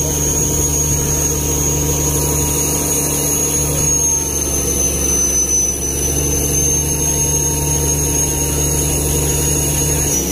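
Fishing boat's engine running steadily under way: a loud, even drone with a thin high whine above it.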